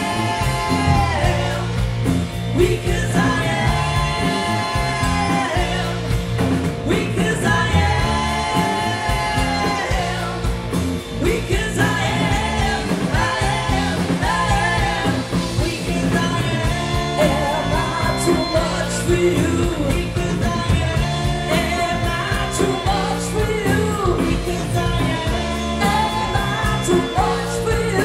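Live amplified rock band playing: a woman sings lead in long held notes over electric guitar, bass, keyboards and drums.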